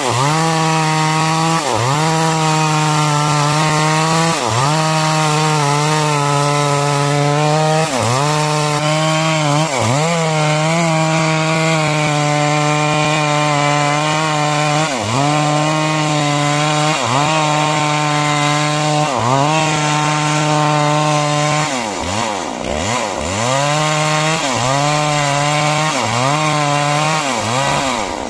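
Two-stroke chainsaw running at full throttle as it cuts lengthwise through timber to make beams, with a hiss of cutting over the engine. The engine pitch sags briefly every second or two under the load of the cut and picks back up, with several deeper dips near the end.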